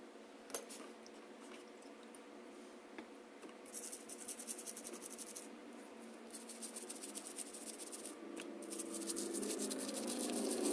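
Toothbrush bristles scrubbing a wet plastic Tonka wheel ring, in three stretches of rapid fine scratching. A small click sounds about half a second in.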